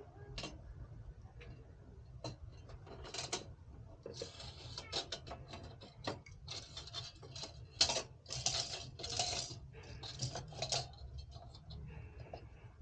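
Handling noises: a run of small clicks, taps and scraping rustles, busiest in the middle seconds, over a steady low hum.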